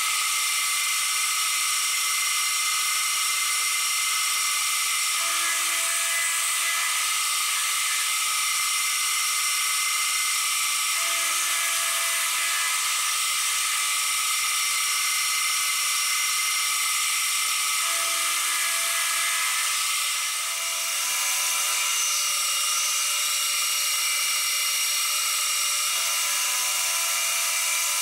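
Deckel FP1 milling machine running steadily with a high whine while its spindle turns an end mill that mills a small workpiece held in the dividing head's chuck. A faint lower tone comes and goes several times.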